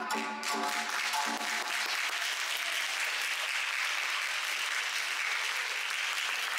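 Audience applauding steadily at the end of a dance performance, while the last notes of the Tsugaru-jamisen accompaniment die away in the first second and a half.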